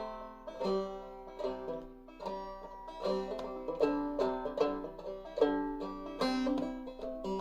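Five-string banjo played clawhammer style in eCGCD tuning: a steady run of plucked, ringing melody notes with a bouncy rhythm, the B part of a fiddle tune.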